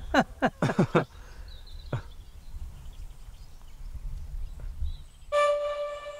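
Open-field ambience: low wind rumble on the microphone with faint birdsong, after a man's brief laugh at the start. About five seconds in, a steady held musical chord comes in and carries on.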